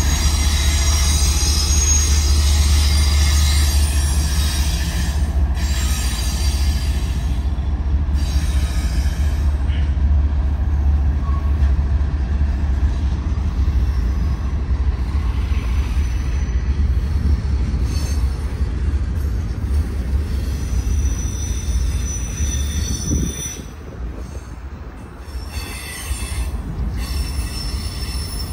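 Union Pacific freight train passing close by, led by a Tier 4 ACe and a GEVO diesel locomotive: a loud, heavy low rumble with cars rolling past and high wheel squeals coming and going. The rumble drops off somewhat a little past twenty seconds in.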